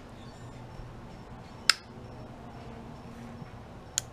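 Two sharp metallic clicks, a loud one about two seconds in and a softer one near the end, from the parts of a partly assembled Glock 21 frame being worked by hand.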